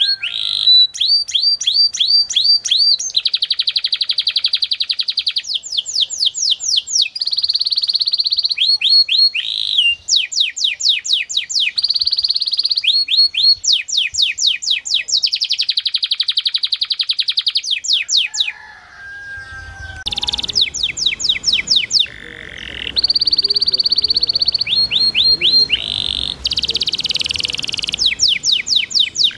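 Domestic canary singing a long, continuous song, alternating series of separate quick rising notes, about five a second, with very fast buzzing rolls and held whistled notes, broken only by brief pauses. From about two-thirds of the way through, a low hiss of trickling water runs under the song.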